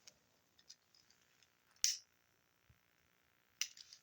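A few short, sharp clicks in a quiet room: small ones near the start, the loudest about two seconds in, and a quick cluster near the end.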